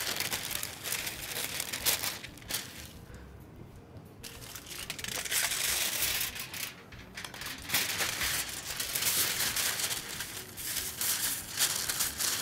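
Aluminium foil and baking paper crinkling and crumpling as they are folded and wrapped by hand, with a short lull about three seconds in.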